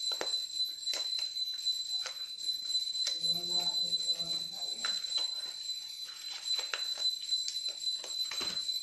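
Hands winding thread tightly around a leaf parcel: scattered short clicks and rustles of leaf and thread, with glass bangles clinking on the wrist. A steady high-pitched whine sits under it.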